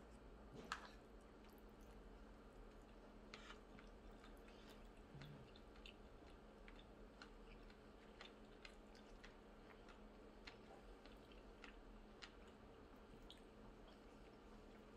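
Faint eating sounds: chopsticks clicking now and then against plastic bento trays, with soft chewing, and one sharper click about a second in.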